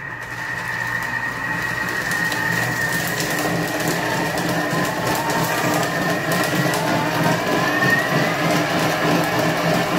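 Thermomix TM6 food processor running at speed 7, its blade grinding the dried fish-broth mixture and coarse salt in the steel jug. A steady high motor whine over a gritty grinding rush, building up over the first couple of seconds, with the whine creeping up slightly in pitch later on.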